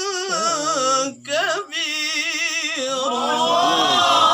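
A male qari reciting the Qur'an in the melodic murattal/tilawah style, holding long ornamented notes with a wavering vibrato as he draws out the word 'kabira'. About three seconds in the recitation gives way to a jumble of overlapping voices from the listeners.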